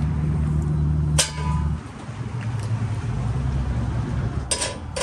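Metal clinks of a propane cylinder's hose fitting and valve being handled, over the steady low hum of an idling engine. The hum drops away about two seconds in, leaving a fainter one.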